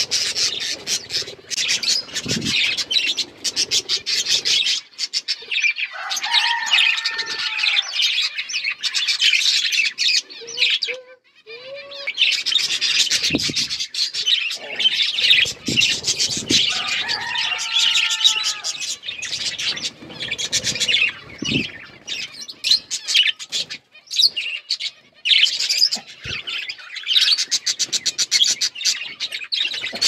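A flock of budgerigars chattering and warbling, a dense stream of rapid high chirps from many birds at once, with a brief lull about eleven seconds in.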